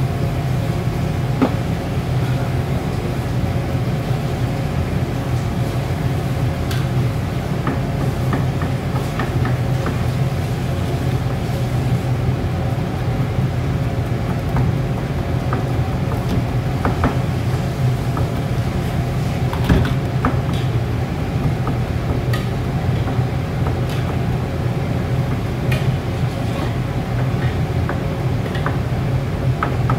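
Steady low roar of a high-pressure gas wok burner, with a metal ladle scraping and clinking against the steel wok every few seconds.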